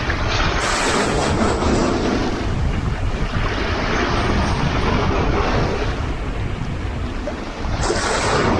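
Sea waves breaking and washing ashore, with two louder surges about a second in and near the end. Wind rumbles on the microphone throughout.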